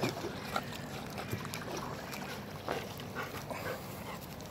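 Yellow Labrador retriever giving several short whimpers as it climbs out of the water onto the bank.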